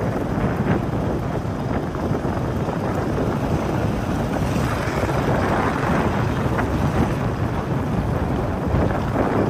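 Steady wind rushing over the microphone while riding along a road by motorbike, with vehicle noise mixed in and no distinct engine note.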